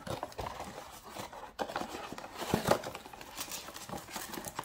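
Hands opening a small cardboard trading-card box and sliding the packs out: a series of short scrapes, taps and rustles of cardboard.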